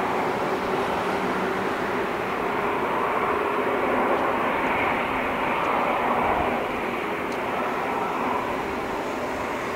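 Jet engines of a Boeing 747-8 freighter, four GEnx turbofans, running steadily at low taxi power: an even, continuous jet noise with a faint steady hum underneath.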